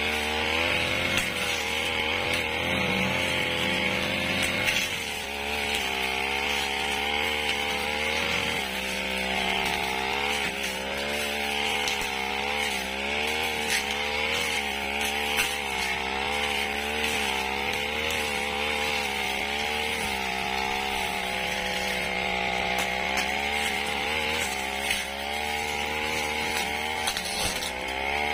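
Petrol brush cutter running under load as it cuts dry grass and undergrowth, its engine speed rising and falling over and over as the blade is swung through the growth.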